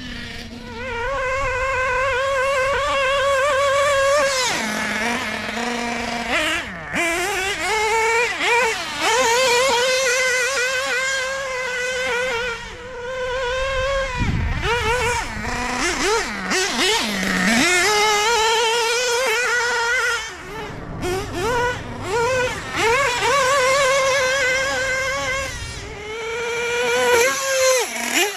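LRP .32 (5.2cc) two-stroke nitro engine in a 1/8-scale RC buggy, running at high revs with a high, wavering whine. Its pitch drops sharply and climbs back several times as the throttle is let off and opened again, most clearly about five, fifteen, seventeen and twenty-seven seconds in.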